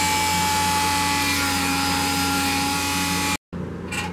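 Dremel rotary tool running with a small sanding drum, grinding against the edge of a wooden handle to round over its corners: a steady high whine with a rasping sanding noise. It cuts off abruptly about three and a half seconds in, leaving quieter room tone and a brief click near the end.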